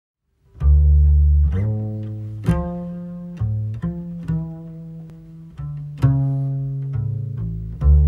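A solo double bass played pizzicato: single low notes plucked one at a time, each ringing out and fading before the next, at an unhurried pace.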